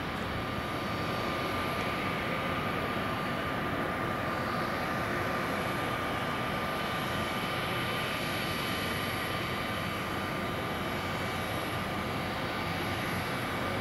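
Reims/Cessna F150 light aircraft's four-cylinder piston engine and propeller at takeoff power during the takeoff roll, a steady drone.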